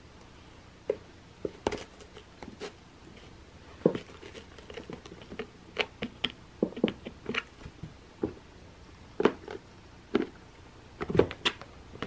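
A cat batting and pawing at a fuzzy pom-pom toy inside an artificial-grass cat scratcher: irregular soft taps, scratches and rustles, with a few sharper knocks.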